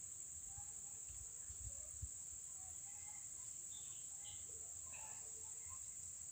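Steady high-pitched drone of insects in a chorus, with a few faint short chirps scattered over it and a soft low bump about two seconds in.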